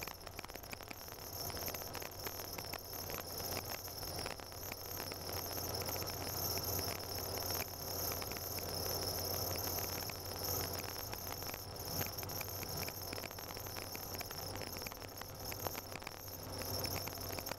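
Car driving on a snow-covered road, heard from inside the cabin: a steady low engine drone with a constant high hiss and a dense fine crackle from the tyres on packed snow.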